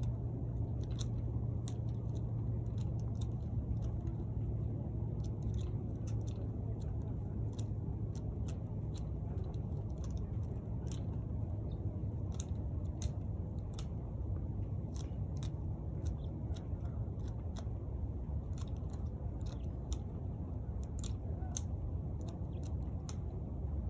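Hand pruning shears snipping dormant grapevine canes: many short, sharp clicks at an irregular pace, about one or two a second, over a steady low rumble.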